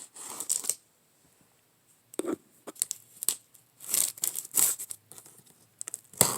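A package being torn open by hand: short, irregular bursts of tearing and rustling packaging with brief pauses between them.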